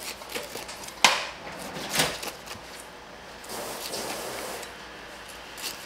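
Kitchen utensil knocking sharply on a wooden cutting board twice, about a second apart, then about a second of scraping.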